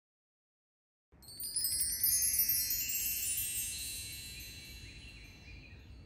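Metal chimes: a shimmering run of many high, bell-like tones that starts about a second in and rings out, fading slowly over the next few seconds.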